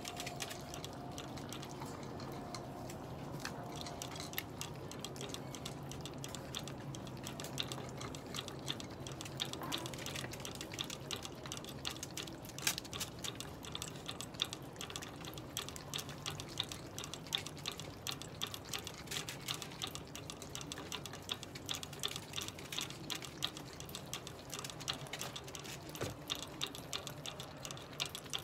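A small dog licking at the nozzle of a drinking bottle clipped to a wire pen, giving rapid, irregular clicking over a low steady hum.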